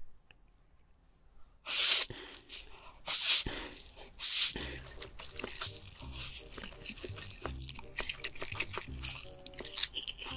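A person slurping big mouthfuls of spicy stir-fried instant noodles: three loud slurps about two, three and four and a half seconds in, then wet chewing with many small clicks.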